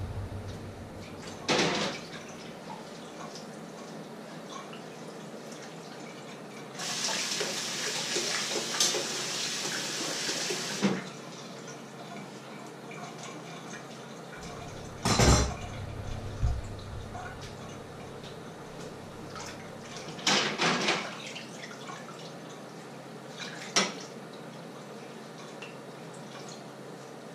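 Washing up at a kitchen sink: a tap runs for about four seconds, and dishes and pans clatter now and then, with the loudest knocks about halfway through.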